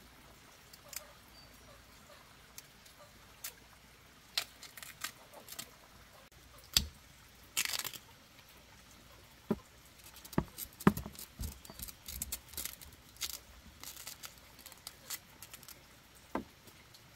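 Hands peeling the sheaths off boiled bamboo shoots: scattered crisp crackles and tearing, with a longer rip about halfway through and a few soft knocks.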